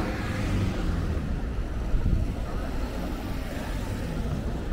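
Street traffic: a car driving past close by, over a steady low rumble of city traffic noise.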